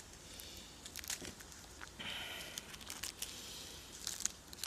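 Faint crinkling of the thin plastic wrapper of a triangle kimbap being handled, with scattered small clicks.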